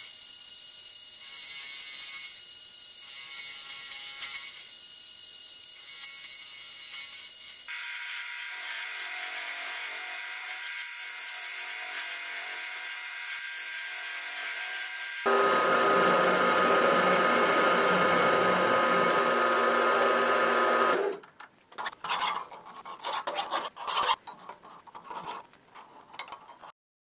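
A small milling machine runs a chamfer cutter into the forged steel head of a rebar bolt, a steady cutting whine that changes abruptly twice and is loudest from about 15 seconds in. About 21 seconds in it gives way to irregular scraping strokes of a hand file on the bolt's hexagonal head.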